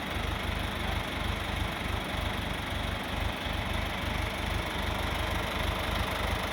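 An engine idling steadily, with an even low rumble.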